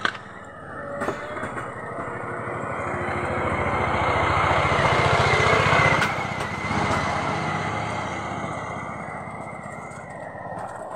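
A motor vehicle's engine passing by, growing louder to a peak about six seconds in and then fading away.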